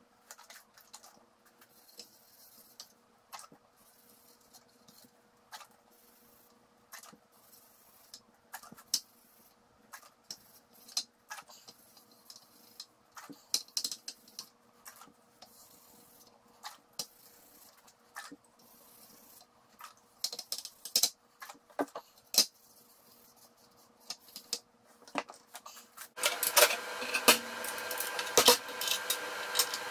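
Scattered light clicks and taps of hand work over a faint steady hum: gloved hands, a can and a rag handled while finish is wiped onto walnut table-saw inserts. About 26 s in the sound gets louder and busier with a run of metallic clinks as dado blade parts are handled at the table saw.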